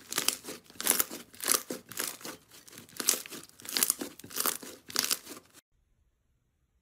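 Soft green slime kneaded and squeezed by hand, giving a crackling, crinkling squish with each squeeze, about two a second. It cuts off about a second before the end.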